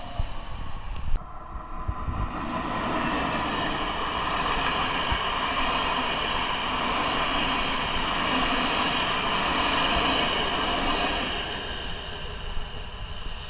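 A train running along the rails: the rushing wheel-and-rail noise builds over the first few seconds, stays strong through the middle and eases off near the end.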